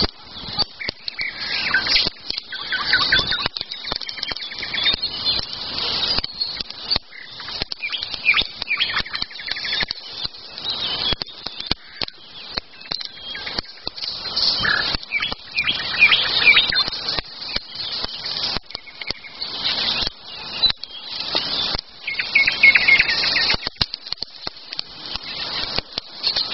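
Wild songbirds chirping and singing, with short trills coming and going throughout. Frequent short crackles and clicks run underneath.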